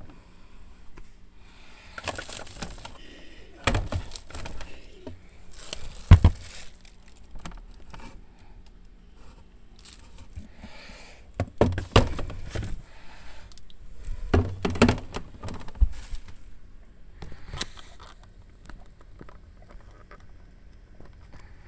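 Refrigerator doors being handled: irregular knocks, clicks and rustling, with sharp thumps about 4, 6, 12 and 15 seconds in, over a low hum.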